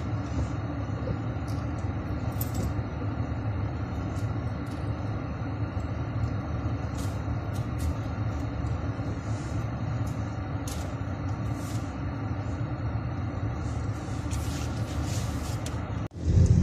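Road noise inside a moving car's cabin: a steady low rumble of engine and tyres, with a few faint light clicks.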